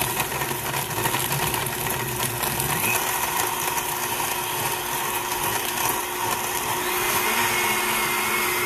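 Blendtec Total Blender running steadily on its smoothie program, its motor and blades blending a thick shake with ice.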